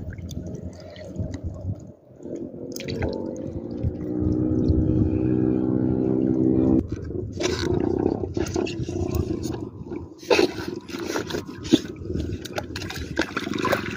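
Water splashing and dripping as a fishing gill net is lifted and handled in shallow sea water, with water streaming off the mesh. A steady hum runs underneath for a few seconds in the middle and cuts off suddenly.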